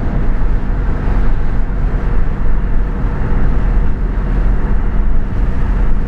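Mustang GT's V8 cruising in sixth gear with the driver's window down: a steady rush of wind and road noise with a low hum underneath and almost no exhaust note from the Corsa Extreme cat-back.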